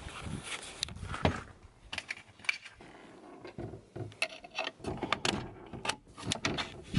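Small metal hinge hardware being handled and fitted on a plywood cabinet: irregular light clicks and taps of steel against steel and wood, with a quieter stretch in the middle.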